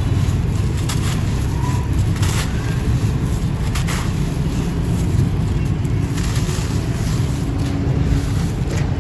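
Dry sand-cement chunks crumbling and breaking, a few short gritty crunches about two, four and six seconds in, over a steady low rumble of wind on the microphone.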